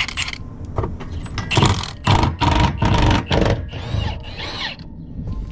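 Cordless impact wrench run in several short bursts against a fastener on the exhaust under the car.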